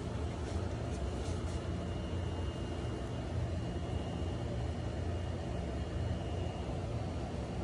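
Domestic tortoiseshell cat purring while being stroked on the cheek and head: a steady, low, even rumble.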